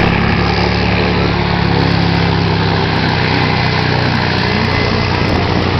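Vehicle engine idling steadily, a continuous even hum.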